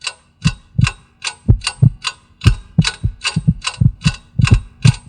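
Rhythmic percussion: deep thuds paired with metallic, ringing ticks, about three hits a second, in an even mechanical pulse.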